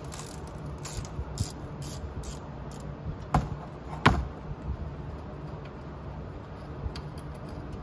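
Irregular metallic clicks and taps of a hand wrench working a 12 mm bolt loose from the CRX's stabilizer bar, with two sharper knocks a little past the middle, over a steady low hum.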